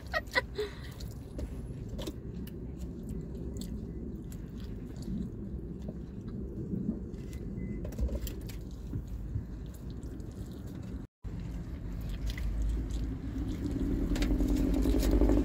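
Chewing and biting into fried chicken, with small wet clicks over a steady low rumble that grows louder near the end. The sound cuts out completely for a moment about eleven seconds in.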